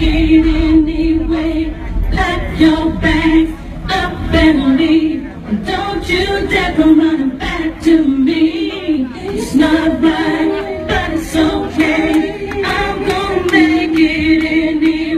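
Loud music with a singing voice and a heavy bass beat.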